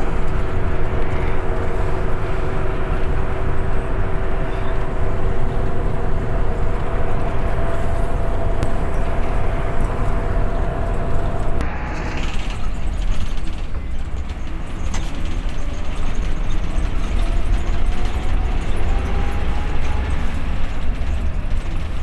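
Intercity bus heard from the driver's cab while driving: a steady low engine and road rumble with a whine over it. The whine drops away abruptly about halfway through, and a faint rising whine follows near the end.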